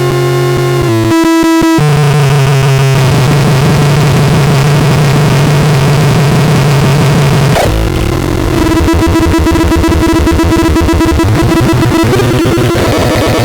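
Harsh, loud synthesizer drones with a noisy buzz, holding a steady pitch and then jumping abruptly to new tones several times, with rising pitch sweeps near the end.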